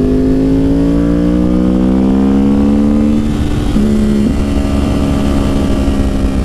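Yamaha R1 sportbike's inline-four engine running under way, its note rising steadily for about three seconds as the bike accelerates, then levelling off with a brief drop in pitch about four seconds in before picking up again. Wind and road rush under the engine.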